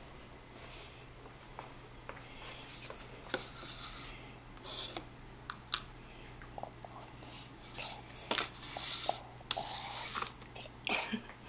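Scattered clicks, taps and short rustles of paper and a plastic document stand being handled on an office desk, busier in the second half, over a steady low electrical hum.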